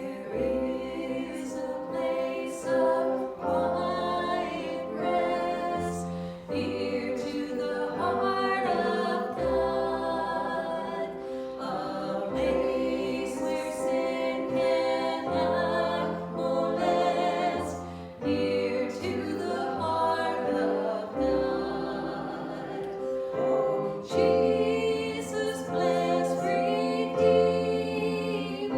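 A group of voices singing a worship song with instrumental accompaniment, held low notes changing every couple of seconds beneath the melody.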